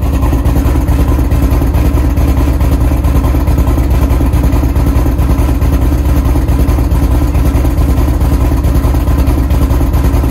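Exhaust of a 2008 Ford Mustang Bullitt's 4.6-litre V8 idling steadily, a loud low burble from the tailpipes.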